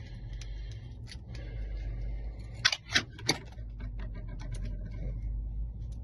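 Lock being picked: small metallic clicks and scrapes of a pick working the pins of a commercial door lock, with three louder clicks in quick succession about three seconds in, over a steady low hum.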